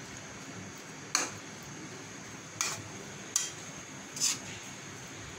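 A spatula knocking and scraping against a wok four times while stirring raw-mango pieces in simmering sugar syrup, over a steady low hiss.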